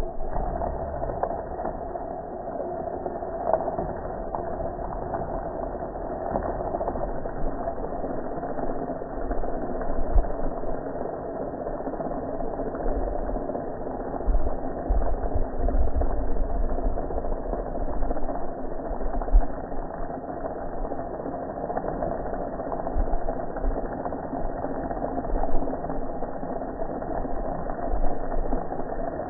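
Pressure washer running steadily with a constant hum while water sprays and splashes over a gas grill.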